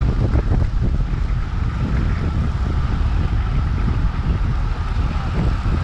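Wind buffeting the microphone of a camera mounted on a road bike at speed, a steady low rumble mixed with the rush of bicycle tyres rolling on asphalt.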